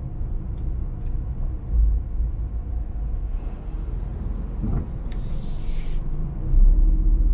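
Car on the road: steady low engine and tyre rumble, with a short hiss about five seconds in lasting about a second. The rumble grows louder near the end.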